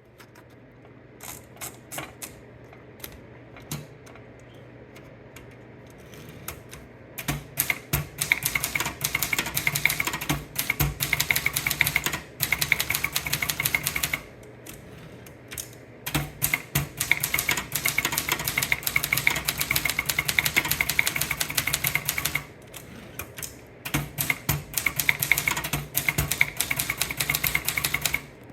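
Typewriter being typed on. At first there are a few separate keystrokes, then three long runs of fast typing, the key strikes clattering rapidly with short pauses between runs.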